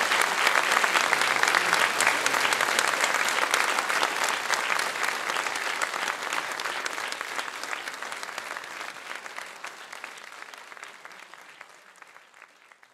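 Audience applauding, steady at first and then gradually fading away over the second half.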